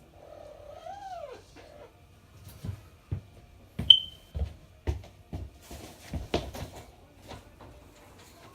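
Scattered knocks and bumps of a pet bird being chased and handled indoors, with a short high chirp about four seconds in and a brief rising-then-falling call about a second in.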